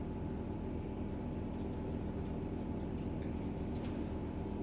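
Steady low mechanical hum of background machinery, unchanging throughout.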